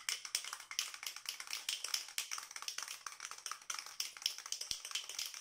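Aerosol can of Tremclad clear oil-based rust paint being shaken, its mixing ball rattling in quick, steady clicks, about five a second.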